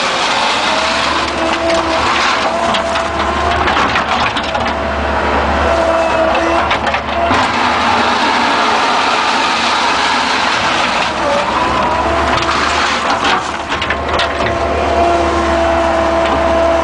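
Bobcat skid-steer engine running under load with a steady whine that shifts in pitch, while the backhoe attachment's bucket scrapes and crunches through broken blacktop and dirt, with clusters of knocks and grinding a few seconds apart.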